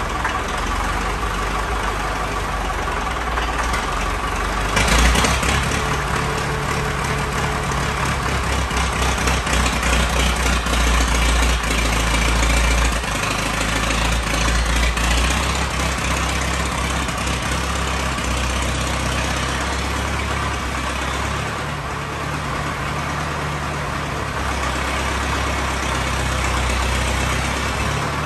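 International TD9 crawler's four-cylinder gas-start diesel engine running after a complete overhaul. About five seconds in it gets suddenly louder and stays heavier for several seconds before settling back to a steady run.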